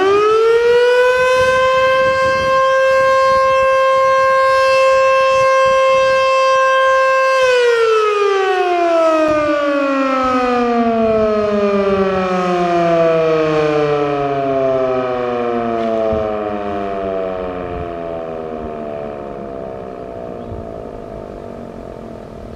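Federal Signal Model 2-240 outdoor warning siren sounding its daily test alert blast. It finishes winding up right at the start, holds one steady tone for about seven and a half seconds, then winds down, its pitch falling slowly as it fades.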